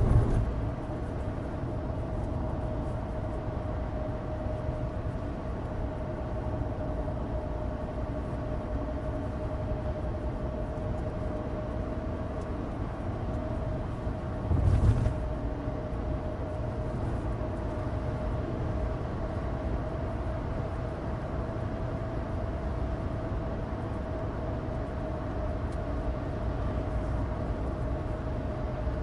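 In-cabin sound of a 2016 Suzuki Alto Turbo RS (660 cc turbocharged three-cylinder) cruising on a dry road: a steady drone with a held engine tone over low road rumble from studless winter tyres. About halfway through there is one brief low thump.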